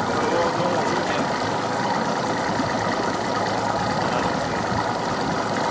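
Outboard boat motors idling steadily, a continuous even engine drone.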